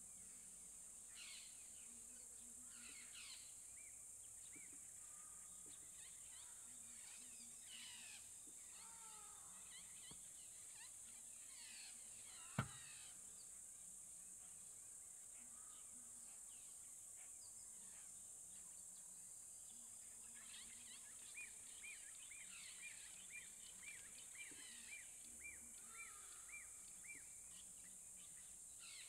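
Faint bush ambience: a steady high-pitched insect drone with scattered bird calls, including a run of about a dozen evenly spaced notes, roughly two a second, in the second half. A single sharp click about halfway through is the loudest sound.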